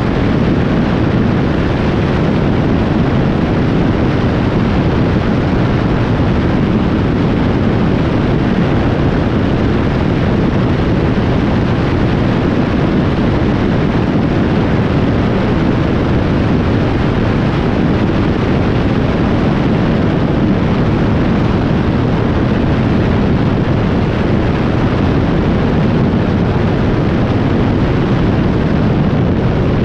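Two-seater Indy car at racing speed, heard from the open cockpit: a loud, unbroken roar of wind buffeting the microphone mixed with engine and tyre noise.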